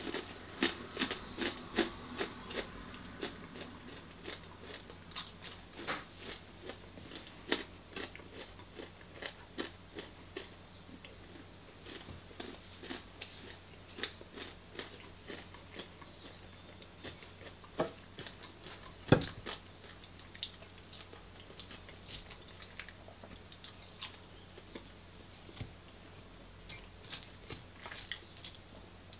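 Close-up chewing of fried chips: wet mouth clicks and crunches, frequent at first and then sparser, with one sharper knock about two-thirds of the way through.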